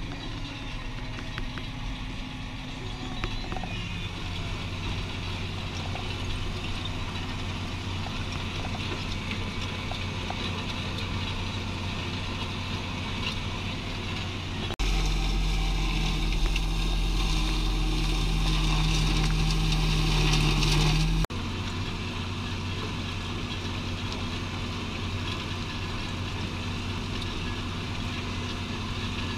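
Tractor engine running steadily. From about 15 to 21 seconds in, a louder, deeper engine drone with a hiss over it starts and stops abruptly.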